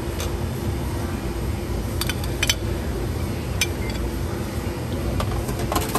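Metal serving tongs clinking against a stainless steel buffet pan and a plate while noodles are served: several sharp clinks, about two seconds in and again near the end, over a steady low hum.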